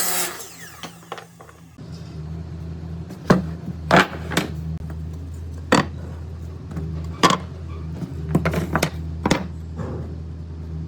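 Woodworking workshop sounds: a power tool's motor hums steadily, dropping off briefly and coming back about two seconds in, while sharp knocks of wood on wood come every second or so.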